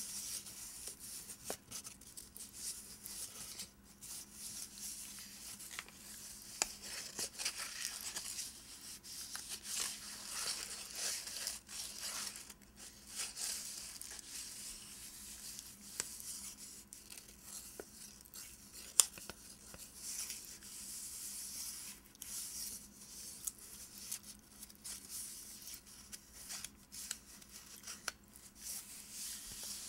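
Fingernails scratching and tracing over the paper wrapper of a bar of soap: a continuous, uneven scraping hiss with brief pauses. There is a single sharp tick a little past the middle.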